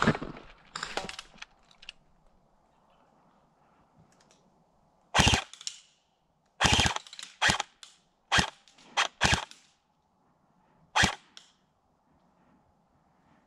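Airsoft guns firing: sharp, loud single shots, a few seconds apart at first and then in quicker succession, about eight in all.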